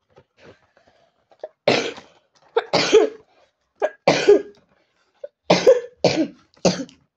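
A boy coughing into his hand, a run of about seven short coughs in quick groups.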